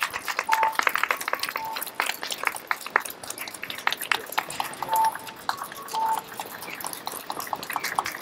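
Scattered applause from a small outdoor crowd, many irregular claps. A few short, high beeps sound through it.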